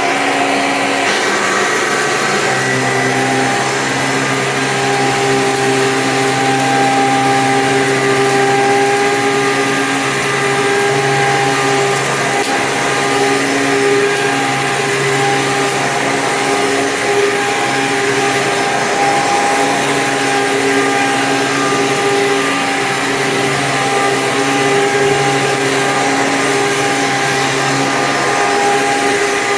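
Hoover Sprint U5068-900 12-amp upright vacuum cleaner running steadily, its motor giving a continuous hum with several held tones and a slight shift in pitch about two seconds in.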